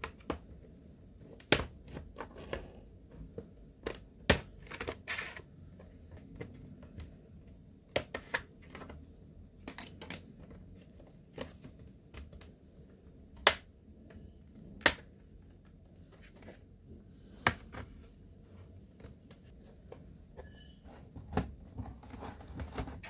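A plastic card prying around the edge of a laptop's plastic bottom case, with irregular sharp clicks and snaps as the case's latches release one by one.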